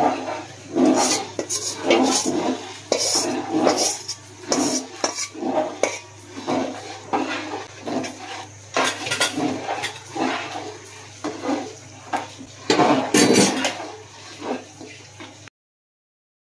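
Metal spatula scraping and knocking against a large metal cooking pot while stirring a thick curry as it thickens, in repeated strokes about once or twice a second. The sound cuts off suddenly near the end.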